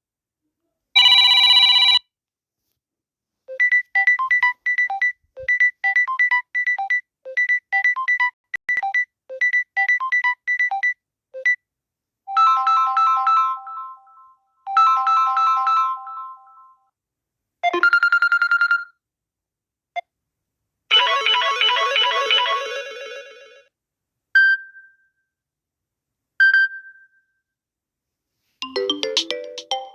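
Samsung Galaxy A30 ringtones played one after another: a string of short electronic melodies and chimes, each lasting from about a second to several seconds, with silence between them. The longest is a beeping tune that repeats over and over; near the end come two single short pings before another melody starts.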